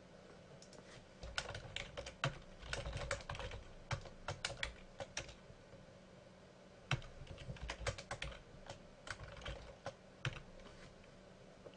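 Typing on a computer keyboard: two runs of quick keystrokes with a short pause between them.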